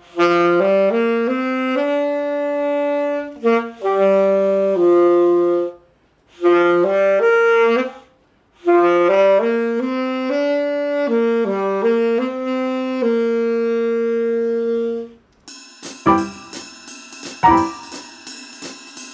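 Saxophone playing a slow melody in three phrases with short breaks, ending on a note held for about two seconds. Near the end the saxophone stops and a quieter run of sharp struck notes takes over.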